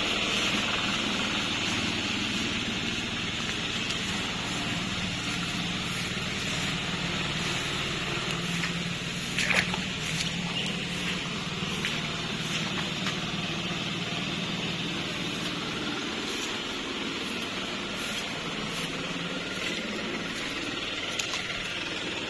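A steady low engine drone under a steady high hiss, with one short louder noise just before halfway.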